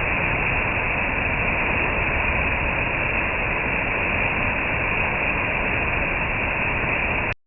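Waterfall: steady, muffled rushing of falling water, cutting off suddenly near the end.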